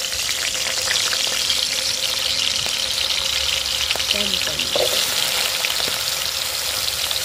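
Cubed potatoes sizzling in hot oil in a large kadai, the frying starting abruptly as the pieces go in and then running as a steady, dense crackle.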